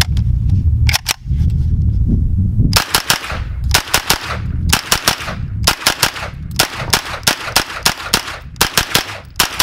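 Century Arms NAK9-X 9mm AK pistol firing rapid semi-automatic shots in quick strings of two to four, starting about three seconds in, after a couple of clicks about a second in. The shooting stops near the end, where the gun had a failure to feed from its KSI Glock-pattern magazine.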